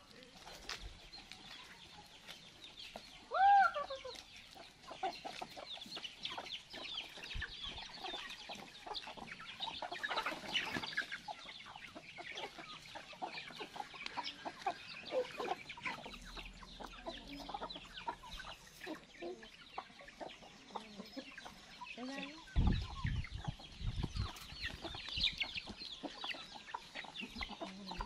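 A flock of chickens clucking as they crowd round scattered feed, a steady patter of short clucks, with one louder call a few seconds in. Low thumps come in over the last few seconds.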